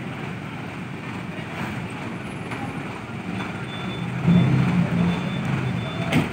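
Heavy truck engines running in street traffic, with a louder low engine stretch about four seconds in. A sharp knock comes near the end.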